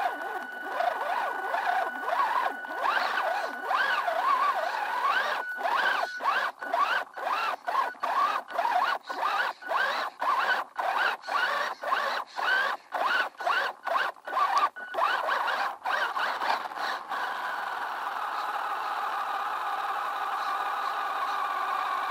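WLtoys 10428 RC truck's electric motor and gears whining, the pitch rising and falling with the throttle. Through the middle the whine cuts in and out about twice a second as the throttle is pulsed, then runs steadily near the end.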